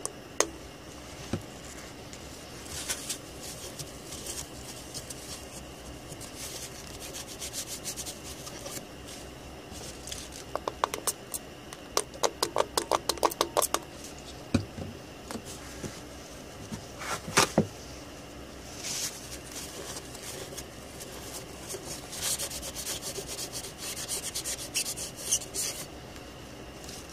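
A cloth wiping and scrubbing alcohol over a BGA graphics chip clamped in a metal reballing jig, in irregular bursts with a run of quick scrubbing strokes near the middle. A few sharp knocks break in, the loudest about two thirds of the way through.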